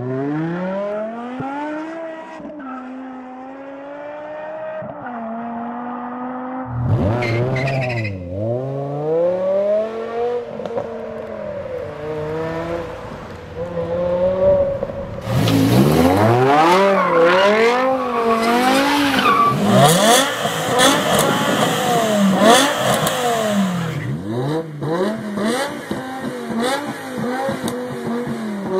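BMW M6 V10 engines, some breathing through Eisenmann race exhausts, accelerating and revving hard in several short clips cut together, the engine pitch climbing and dropping again and again. Near the end one car revs repeatedly at a standstill.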